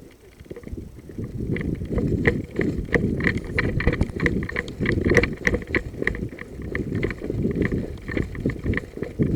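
Irregular rustling and crunching of footsteps and gear pushing through brush, close and loud on a body-worn microphone.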